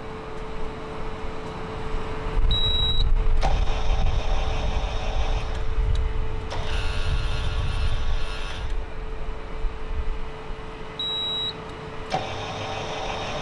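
Anritsu MA517 metal detector running, with a steady hum and low rumble. A short high beep sounds twice, each followed by a few seconds of louder, harsher alarm-like sound.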